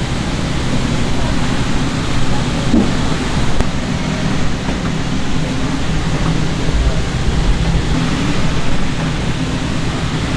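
Steady background noise with faint, indistinct voices mixed in.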